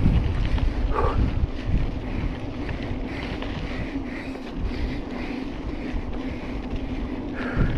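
Wind buffeting the microphone of a handlebar-mounted camera on a mountain bike moving fast along a dirt track, a gusty low rumble over the noise of the bike rolling on dirt.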